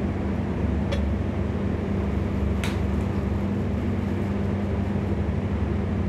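PD 150/80 RP horizontal directional drilling rig running, heard from the operator's cabin: a steady low drone of its engine and hydraulics as the drill string is turned slowly. Two faint ticks about one and two and a half seconds in.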